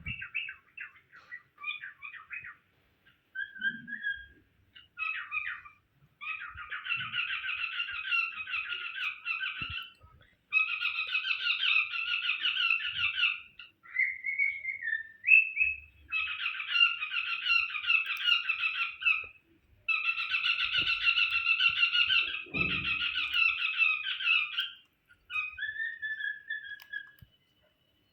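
Cockatiel chattering and warbling in runs of rapid chirps a few seconds long, with short pauses between them and a few single whistled notes.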